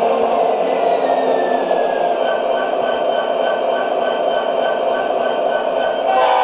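MTH O-scale SD70ACE model locomotive's onboard sound system playing diesel locomotive sounds: a steady engine drone with a tone that falls in pitch about a second in. From about two seconds in, the bell rings about three times a second, and near the end the horn starts to blow.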